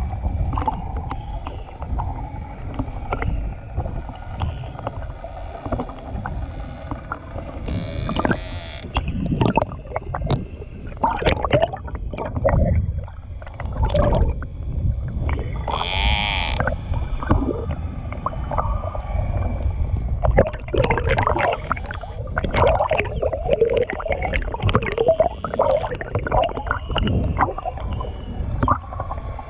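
Bottlenose dolphins heard underwater: trains of clicks and buzzing pulses, with a couple of brief high whistles, over a steady low rumble of water noise.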